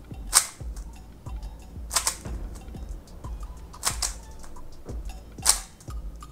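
Magnetic Dayan Tengyun V2 3x3 speed cube being turned through corner cuts with its layers offset. There are four loud plastic clacks about a second and a half apart as the turns snap home, with lighter clicks between.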